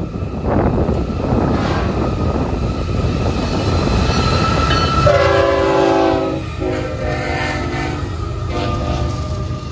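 Florida East Coast Railway freight train led by GE ES44C4 locomotives, rumbling up to a grade crossing. About halfway through, the lead locomotive's air horn sounds a long chord that drops in pitch as it passes, followed by one shorter blast near the end.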